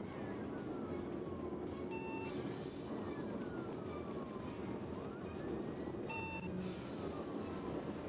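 Police car siren on a slow wail, rising and falling about every three seconds, heard from inside the patrol car at high speed over steady road and engine noise. Two short beeps sound about four seconds apart.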